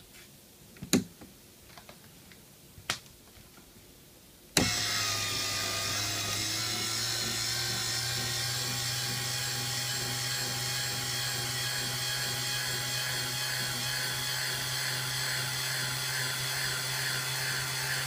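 A few light clicks, then a sharp click about four and a half seconds in as a small 12-volt geared DC motor starts and whines steadily, driving a 3D-printed scissor lift's threaded rod to raise a 1 kg weight. The motor is straining under the load.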